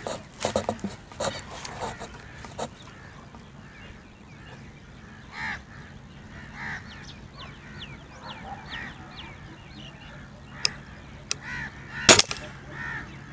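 A single sharp shot from a spring-piston air rifle about a second before the end, the loudest sound. Birds call in the background through the middle, and there are a few light clicks in the first couple of seconds.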